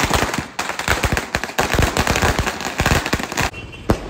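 A string of firecrackers going off in a rapid, dense crackle of bangs that stops about three and a half seconds in, followed by one single louder bang near the end.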